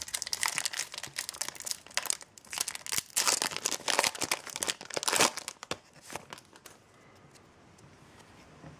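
Foil booster-pack wrapper being crinkled and torn open by hand: dense crackling and tearing for about five seconds, then only faint rustling.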